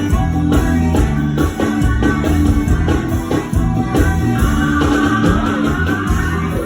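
Live band playing an instrumental passage with a steady beat: drums, bass and keyboard.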